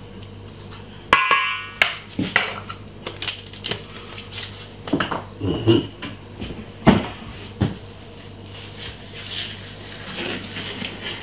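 A metal spoon clinks against a stainless steel mixing bowl with a short ring about a second in, followed by several scattered light knocks and clatters of kitchen utensils.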